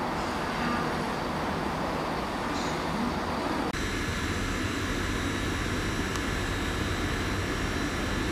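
Distant diesel freight locomotives running slowly: a steady low engine rumble. A little under four seconds in the sound changes abruptly to a second, similar rumble with faint steady high tones over it.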